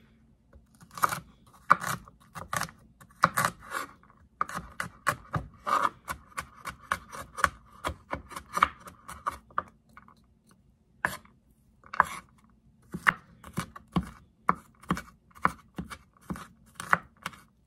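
Chef's knife chopping garlic cloves on a wooden cutting board: a long run of sharp knocks of the blade against the board, with a short pause about ten seconds in.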